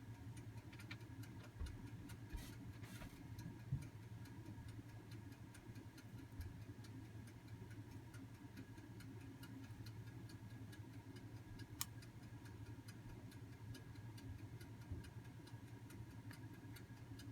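Quiet room tone: a steady low hum with faint, even ticking. A few small, scattered clicks and knocks come from handling the fuel distributor parts while the control plunger is worked out, the sharpest about twelve seconds in.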